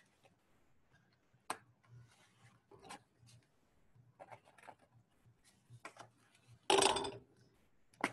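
Light rubbing and tapping of hands handling a cardboard tube studded with toothpicks. There is a sharp click about one and a half seconds in, and a louder rustle lasting about half a second near the end.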